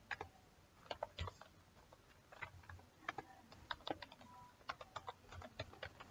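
Computer keyboard typing: faint, irregular keystroke clicks, a few each second with short pauses between them.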